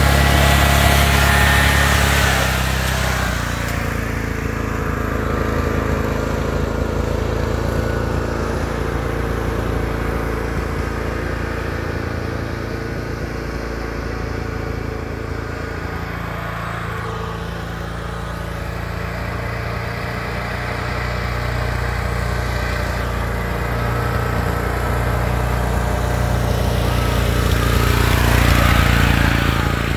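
Riding lawn tractor's small engine running, loud and close at first, growing quieter as it moves off down the road, then louder again as the tractor comes back and drives past near the end.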